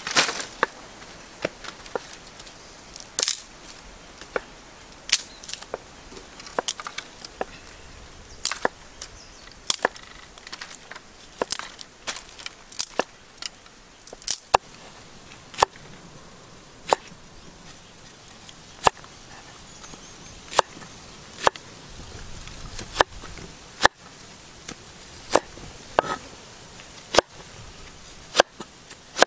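Knife chopping on a cutting board in separate, irregular sharp strokes, about one or two a second.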